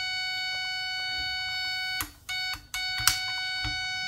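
Armand Prospector metal detector's speaker sounding a steady, high electronic tone. About halfway through it cuts out twice for a moment, with clicks, as the controls are worked.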